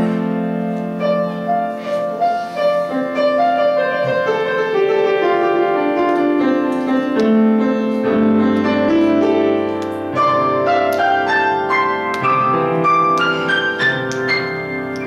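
Piano playing a continuous passage, with a descending line in the middle and a rising run of notes near the end.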